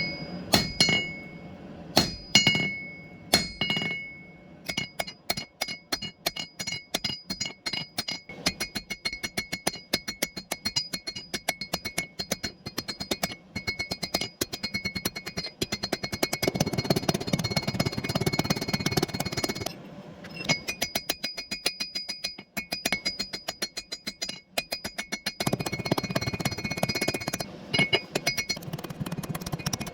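Hammer blows on steel over an anvil, each strike ringing. A few separate blows open it, then a long fast, steady run of strikes follows, broken by short pauses.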